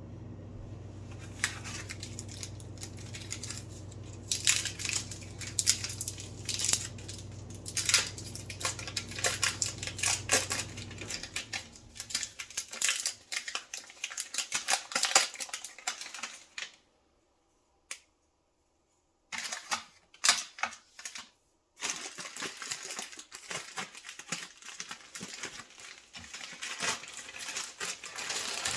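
A microwave oven humming steadily, the hum stopping about eleven seconds in, under dense crackling and crinkling handling noises that carry on after it. The noises break off into a near-silent pause around two-thirds of the way through, then resume.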